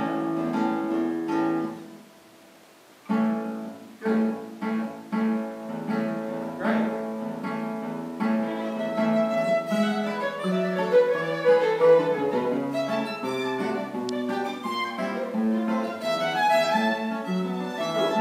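Two classical guitars and a violin playing classical chamber music together, with a brief pause about two seconds in before the playing resumes.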